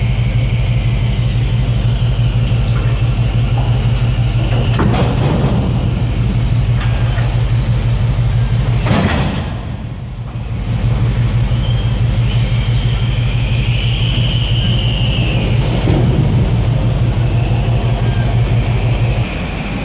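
Steady low machinery hum of a container terminal while ship-to-shore cranes work cargo, with a short rushing noise about nine seconds in and a faint high whine between about twelve and sixteen seconds in.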